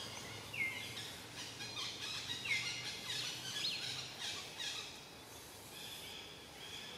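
Forest ambience: a bird gives a short call that drops in pitch and levels off, a few times, over a steady high buzz of insects.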